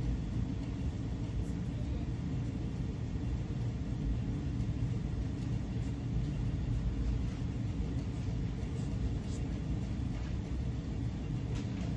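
Steady low rumble of background room noise in a large metal building, with a few faint clicks near the end.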